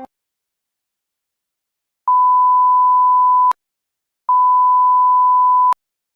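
Censor bleep: a steady, pure, high-pitched beep sounded twice, each about a second and a half long with a short gap between. The first starts about two seconds in, and each cuts off with a click.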